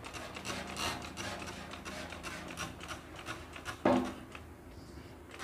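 Hand-trigger spray bottle squirted over and over, a string of short hissing sprays with plastic clicks from the trigger.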